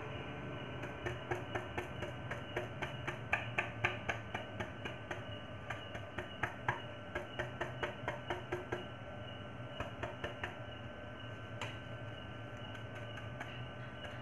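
Paintbrush stippling thick texture paint onto a wooden speaker box: a run of quick, irregular taps, about three a second, thinning out to an odd tap after about ten seconds. A faint steady hum lies underneath.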